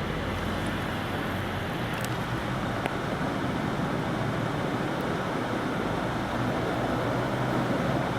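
Steady rush of wind and vehicle traffic in a snowstorm, with a low engine hum underneath and two faint clicks about two and three seconds in.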